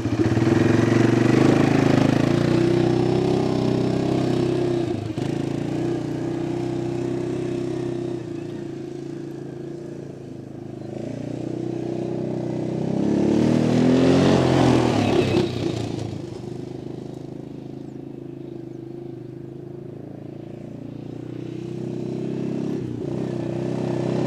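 Arctic Cat 500 ATV's single-cylinder four-stroke engine running as the quad drives off and fades away, loud again with rising and falling revs around the middle, then fading and growing louder near the end as it comes back.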